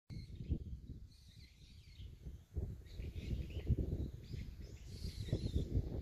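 Outdoor ambience of birds chirping faintly in the trees, over irregular low rumbling gusts of wind on the microphone.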